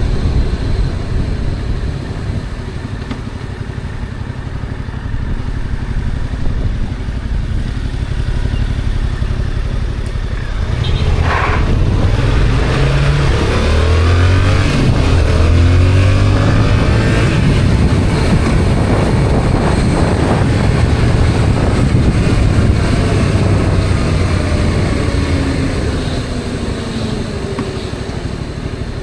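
Yamaha XSR700's stock 689 cc parallel-twin engine running at low revs for about ten seconds, then pulling harder, its note rising and falling through several gear changes before easing off near the end.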